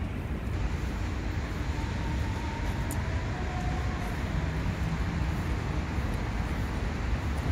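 Steady city traffic rumble, a low even noise with no distinct events.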